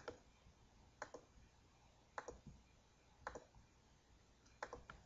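Computer mouse clicking: five short groups of one to three sharp clicks, about a second apart, with near silence between them.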